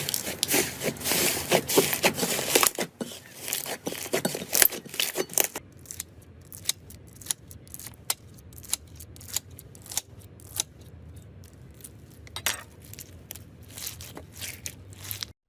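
Slime being squeezed and pressed by hand, giving dense crackling clicks for the first five seconds or so, then sparser single pops and clicks a few times a second.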